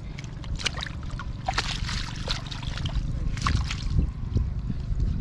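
Water splashing and sloshing in a shallow muddy pond as hands grope through it, in a few irregular splashes over a steady low rumble.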